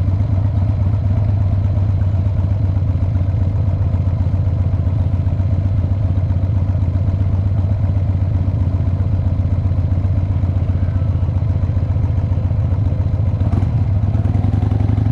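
Cruiser motorcycle engine running steadily at idle and low walking-pace speed, heard from the rider's seat, with a fast, even low pulse and no revving.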